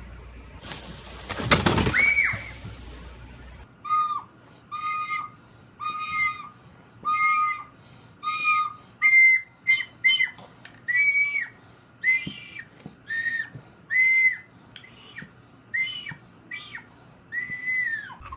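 A toddler blowing short toots on an orange plastic toy recorder, about twenty single notes in a row, the first few lower and the rest higher, each note sagging as it ends. Before the tooting, near the start, there is about a second of loud rushing noise.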